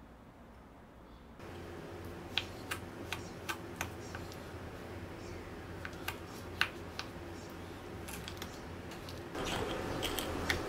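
Wooden spoon stirring brown sugar into softened butter in a small ceramic bowl: light scraping with a series of sharp taps and clicks against the bowl, getting louder and busier near the end.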